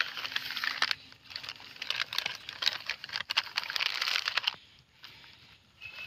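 Plastic packaging crinkling in quick irregular crackles as a foil chips packet is grabbed and pushed into a thin plastic carrier bag, falling quiet about four and a half seconds in and starting again near the end.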